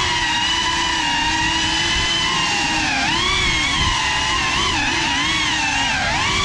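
Geprc Cinelog35 cinewhoop FPV drone's motors and ducted propellers whining on a 6S battery, heard from the onboard camera. The pitch holds steady for the first few seconds, then swings up and down as the throttle changes.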